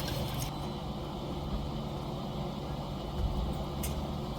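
A vehicle's engine running steadily with an even low hum.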